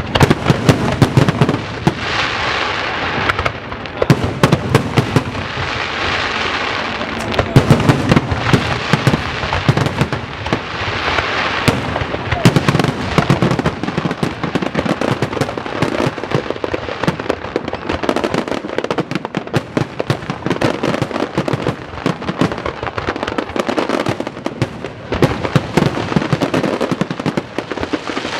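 Aerial fireworks going off in a dense, continuous barrage of bangs and crackling, with swells of crackle every couple of seconds.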